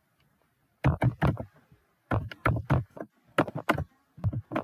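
Typing on a computer keyboard: sharp key clicks in quick runs, starting about a second in, with a short gap before the second run.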